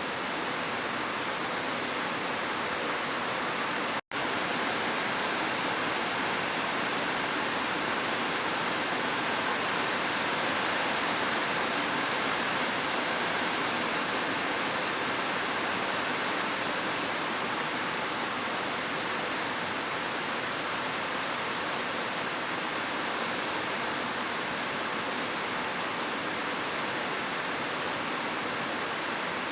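Heavy rain falling in a steady, even hiss, with a split-second dropout to silence about four seconds in.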